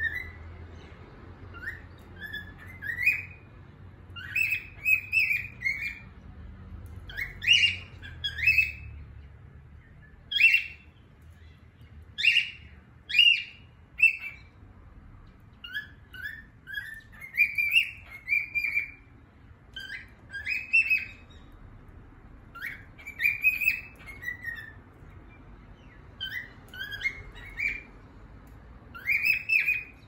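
Cockatiel singing: short whistled notes, many rising in pitch, in quick phrases of two to four with brief pauses between them.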